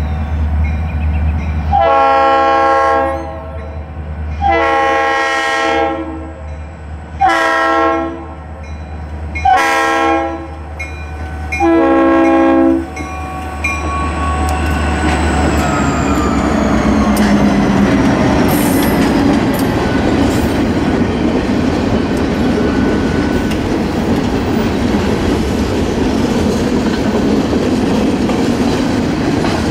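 Norfolk Southern diesel freight locomotive's air horn sounding five blasts for a grade crossing, the first two long, over the low running of its engine. After the locomotives pass, about halfway through, freight cars roll by steadily with a clickety-clack on the rails.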